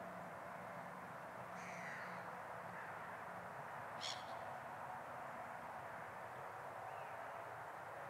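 Gulls calling over a steady background hiss: a brief call about one and a half seconds in, and a shorter, louder one about four seconds in.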